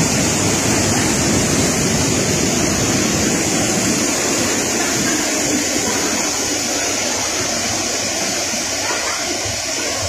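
Steady, loud rush of a waterfall and the whitewater churning in its plunge pool.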